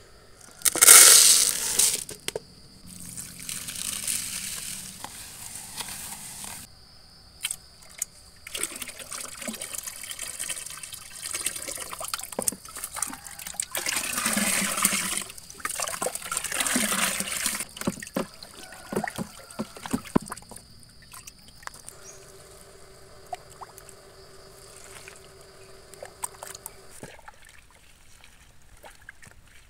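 Water poured from a plastic jug into a large plastic bucket in several separate pours, the loudest about a second in and two more about halfway through.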